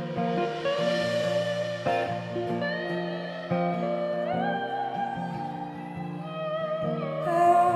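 Live band playing an instrumental passage of a slow song: an electric guitar carries the melody, with notes that slide upward about halfway through, over sustained chords.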